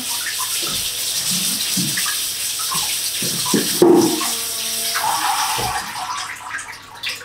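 Kitchen tap running into the sink as strawberries are rinsed, with a single knock about four seconds in; the water stops after about six seconds.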